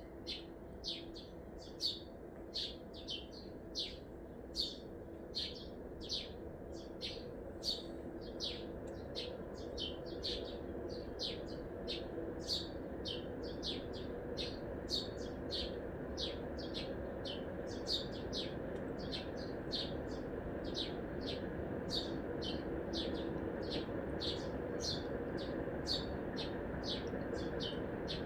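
A small songbird repeating one sharp, high chirp over and over, a little under two a second, above the steady hum of big-city traffic, which grows gradually louder.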